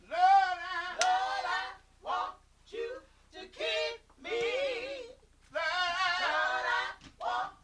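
Unaccompanied gospel singing voice in short melismatic phrases with a wide vibrato, separated by brief pauses.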